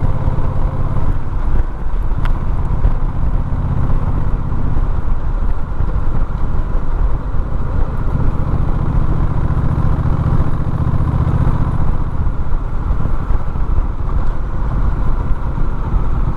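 Vehicle engine running steadily under way, with road and wind noise; the engine note grows stronger about halfway through.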